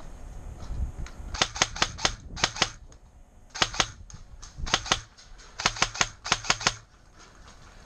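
Airsoft gun firing in five short bursts of rapid sharp snaps, two to seven shots each at about five to six shots a second.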